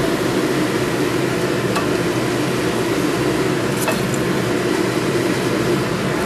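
Hot oil sizzling steadily as sesame-coated mung bean balls deep-fry in a pot, with a few light clicks of the serving utensil about two and four seconds in.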